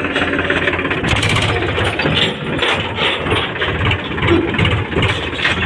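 Tractor engine running while the tractor is driven along a farm track, with a repeated mechanical rattle and clatter over the engine.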